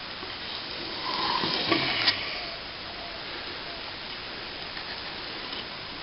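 Small plastering tool scraping and pressing cornice cement into a gap along a cornice: a louder stretch of scraping about a second in, ending in two sharp taps, over a steady low hiss.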